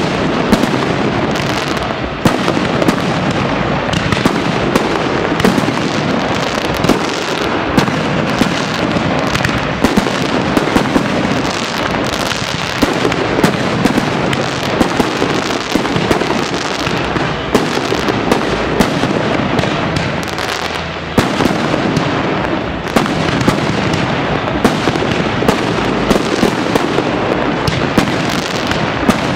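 Aerial fireworks display: an unbroken barrage of shell bursts and crackling-star pops, with frequent sharp bangs and one louder bang about two-thirds of the way in.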